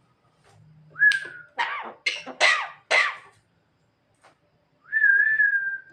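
Javan myna (jalak kebo) giving a short whistle, then four harsh, raspy, cough-like calls in quick succession, then one long, slightly wavering whistle near the end.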